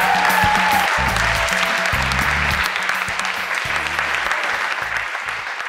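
Upbeat dance music with a repeating low bass pattern, and a group clapping along. The bass thins out about halfway through while the clapping goes on.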